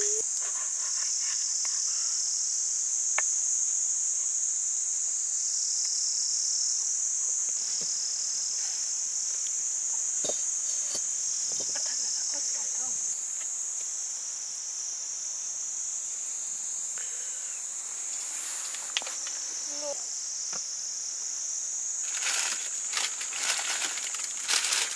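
A chorus of insects shrilling in a continuous high-pitched drone that swells and dips slightly. There are a few light clicks and knocks, busier near the end.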